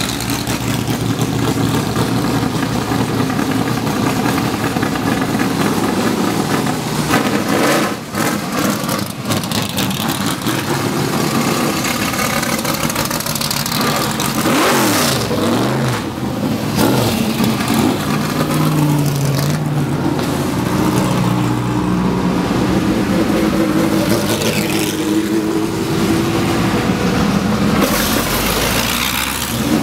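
Engines of vintage race cars driving past one after another at low speed, with revving; the engine pitch rises and falls as cars go by, most clearly about halfway through.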